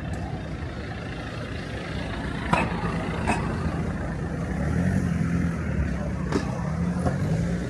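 Street traffic: a motor vehicle's engine running close by, its hum growing stronger about halfway through, with a few short sharp knocks.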